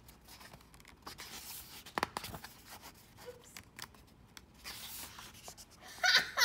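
Paper pages of a picture book rustling as a page is turned, with light handling knocks against the book; one louder knock comes about two seconds in.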